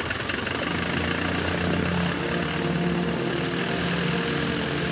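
Vintage biplane's piston engine idling steadily at low revs.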